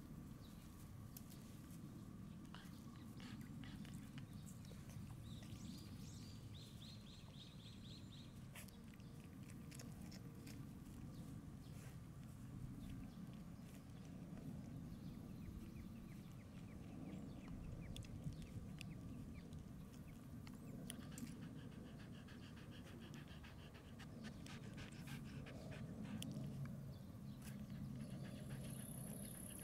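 Shiba Inu dog panting softly, quick and rhythmic, clearest near the end.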